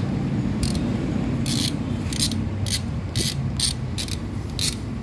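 A hand ratchet clicking in short bursts, about two a second, as the bolts of an engine's rear crankshaft oil seal retainer are tightened, over a steady low hum.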